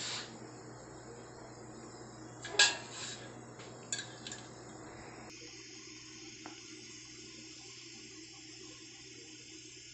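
Cooking oil poured into an aluminium kadhai, a soft trickle of liquid with a few sharp clinks, the loudest about two and a half seconds in.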